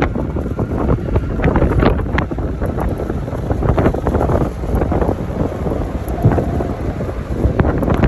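Strong, gusty wind buffeting the microphone: a loud low rumble with irregular blasts of noise.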